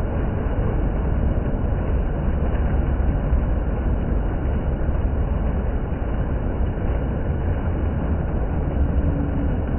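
Water fountain running: a steady rush of falling water with a heavy low rumble.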